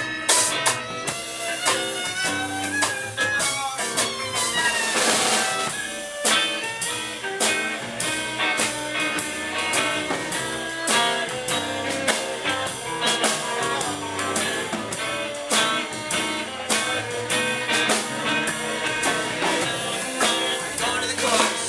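Live band playing an instrumental solo break: guitar over bass and drum kit keeping a steady beat.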